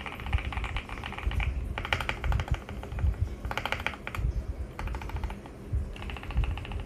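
Typing on a mechanical keyboard fitted with Gateron linear switches: fast runs of keystrokes in several bursts with short pauses between.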